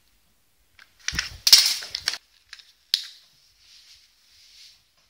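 Handling noise: a padded paper mailing envelope crackling and crinkling loudly for about a second, followed by a few sharp clicks of small hard objects.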